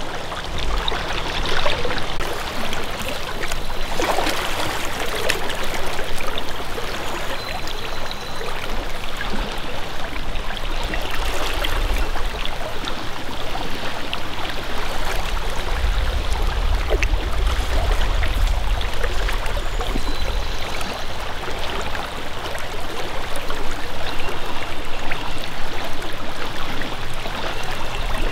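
River current running steadily over a shallow riffle, with low rumbling that comes and goes in the second half.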